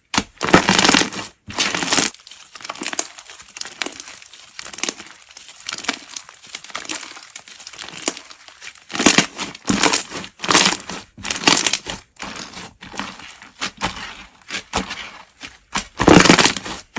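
Slime being handled: a run of irregular crinkling, crackling bursts, loudest about half a second in, again from about nine to twelve seconds, and near the end.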